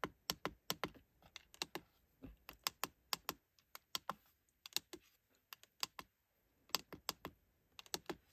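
Irregular clicking of the push buttons on a Chinese diesel heater's LCD controller, pressed many times in quick runs to scroll through digits while entering the settings passcode.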